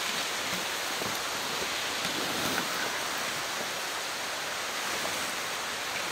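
A steady, even rushing hiss with no breaks or gusts.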